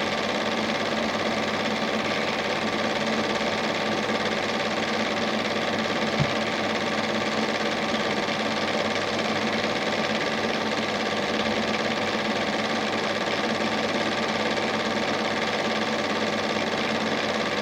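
Standard 8 cine projector running: a steady mechanical whirr of its motor and film transport, with one small knock about six seconds in.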